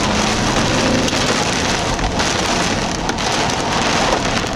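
Heavy rain driven against a moving car's windshield and roof, heard from inside the cabin as a dense, loud hiss with many sharp clicks of drops striking the glass. This is the rain of a tornadic storm's rear flank downdraft.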